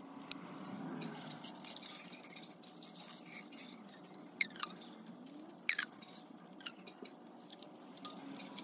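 Masking tape being pulled off its roll and wrapped around a steel motorcycle exhaust muffler: a quiet, scratchy peeling with a few sharp clicks around the middle.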